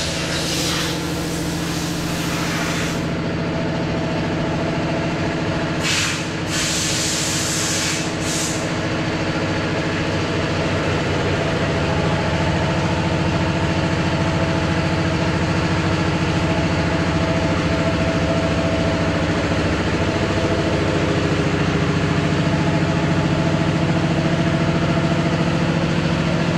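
A motor running steadily at a constant pitch, with two spells of loud hissing in the first nine seconds.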